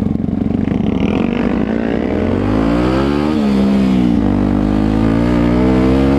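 Motorcycle engine pulling under acceleration, its pitch climbing then falling sharply at a gear change a little over three seconds in, dipping again about a second later, then rising slowly again.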